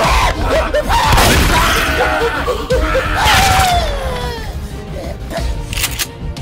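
Action-film soundtrack music with short rising-and-falling notes, and a long falling tone about three seconds in.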